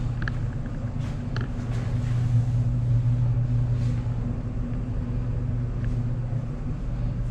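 Steady low machine hum in a tiled bathhouse, typical of a ventilation or air-handling unit, with two faint short squeaks in the first second and a half.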